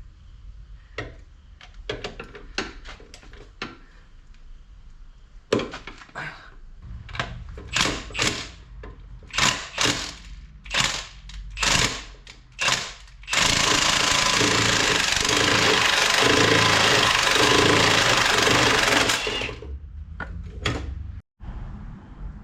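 Power tool working a seized exhaust manifold stud loose through a nut welded onto it. First comes a series of short, separate bursts, then about six seconds of continuous running that stops near the end.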